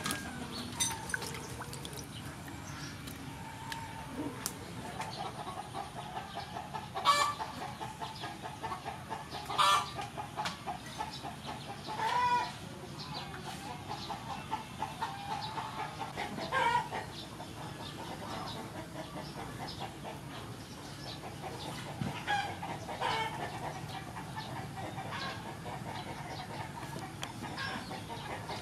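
Chickens clucking steadily in a rapid chatter, with several louder calls standing out.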